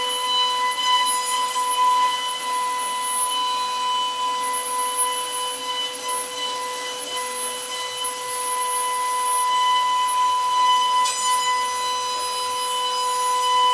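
CNC router spindle running steadily with a high, even whine while its bit carves into a wooden door panel, over a rough cutting noise that swells and eases as it cuts.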